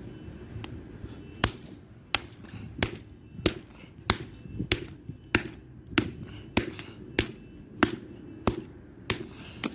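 A hammer striking a metal padlock again and again in a steady rhythm, about fourteen sharp blows roughly two-thirds of a second apart, starting about a second and a half in, as the lock is beaten to break it open without its key.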